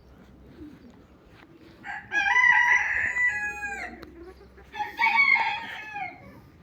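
Rooster crowing twice: a long crow about two seconds in that falls away at its end, then a second, shorter crow about five seconds in.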